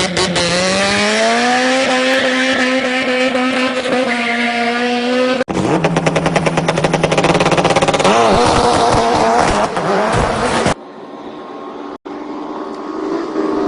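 Engine sound effects of a race car or motorcycle, cut together in several abrupt pieces. One engine revs up and holds a steady pitch, then gives way about five seconds in to a rougher, fast-pulsing run. A sudden cut near eleven seconds drops to a quieter stretch, and another engine revs up near the end.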